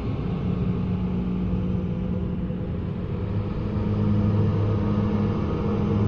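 Ghost ambience sound effect: a steady, dark low drone with a rumble, its sustained low tones shifting slightly in pitch about halfway through.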